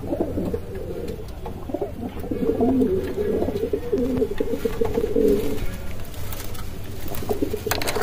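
Kashmiri pigeons cooing: low, wavering coos that run on with little break.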